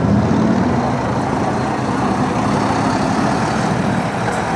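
Engine of a double-decker tour bus running as the bus drives past close by and moves away, a steady low drone that eases slightly after about a second, over street traffic noise.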